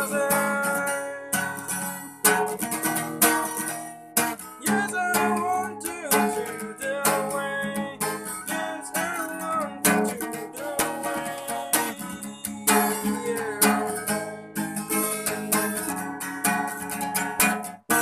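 Acoustic guitar strummed with a capo on the neck, with a man's voice singing along in places.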